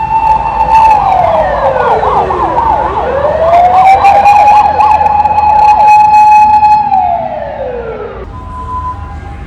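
Loud Japanese emergency vehicle siren: a held wail that slides down, climbs back and holds, then slides down again. A second, fast-warbling siren runs over it for several seconds. Both stop about eight seconds in.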